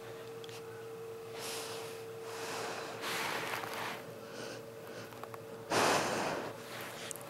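Greyhound sniffing and snorting with her nose close to the microphone: a few short breathy sniffs, then a louder snort about three-quarters of the way through.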